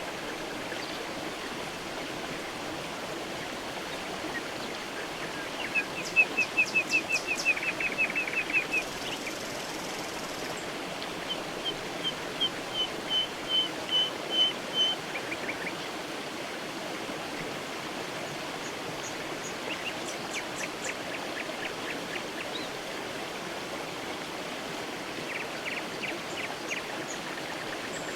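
Creek water running steadily, with a songbird singing short phrases of rapidly repeated high notes over it. One series, starting about eleven seconds in, grows louder note by note.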